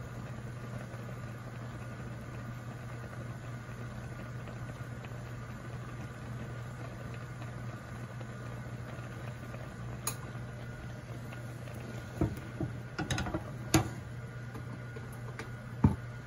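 Pot of chhena balls boiling in sugar syrup, a steady bubbling over a low steady hum, with a handful of sharp clicks in the second half.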